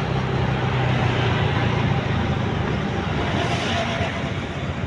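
Motorcycle running at low riding speed, a steady engine note under road and wind noise, heard from the rider's seat.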